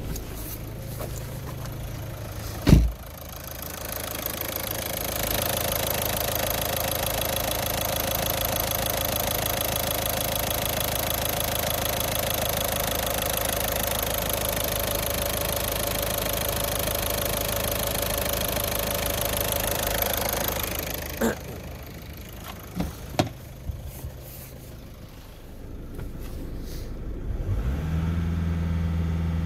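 VW Golf 6's 1.6 TDI four-cylinder common-rail diesel (CAY) idling steadily, with a single loud thump about three seconds in. For most of the stretch it is heard up close in the open engine bay. Near the end it is revved up to about 2,700 rpm and held there.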